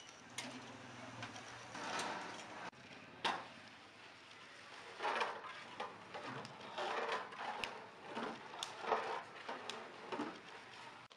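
Water poured into a large metal cooking pot, followed by a long wooden paddle stirring and scraping inside the pot in repeated uneven strokes with occasional sharp knocks against the rim.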